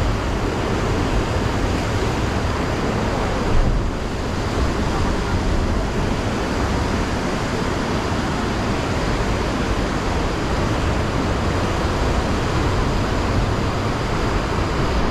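Sea surf surging and breaking over the rocks below, a steady wash of noise with wind rumbling on the microphone; briefly louder about three and a half seconds in.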